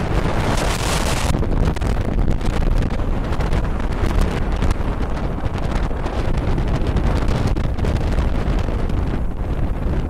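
Strong gusty wind buffeting the microphone: a loud, steady rumbling rush, with a harder, hissier gust in about the first second.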